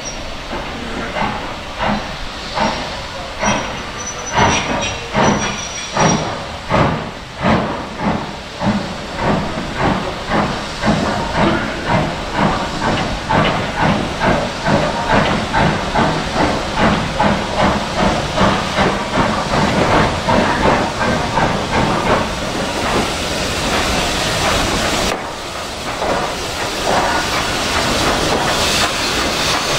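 LMS Fowler 3F 'Jinty' 0-6-0 tank engine No. 47406 running in, its steam exhaust beating out chuffs that settle to about two a second. Near the end a steady hiss of escaping steam takes over as the engine draws alongside.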